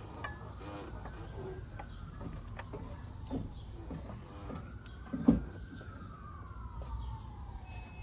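Faint emergency-vehicle siren wailing, its pitch slowly falling, rising and falling again. A few light knocks from hands working at the wheel hub, the loudest about five seconds in.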